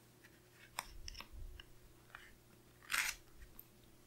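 Paper and a sticker sheet being handled on a planner page: a few faint small clicks, then a short crinkle of paper about three seconds in.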